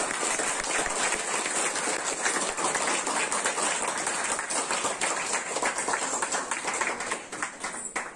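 Audience applauding: a dense, steady clatter of many hands clapping, thinning out near the end.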